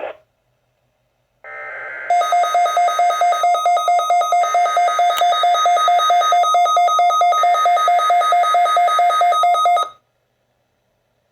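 Weather alert radio receiver sounding its alert alarm: a loud electronic beep pulsing several times a second for about eight seconds. It follows a brief, quieter burst of digital data tones that sets off the alert.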